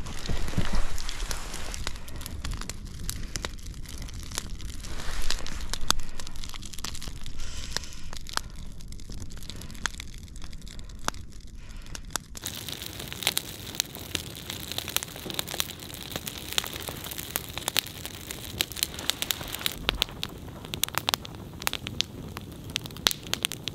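Wood campfire of split logs burning, crackling with frequent sharp pops and snaps.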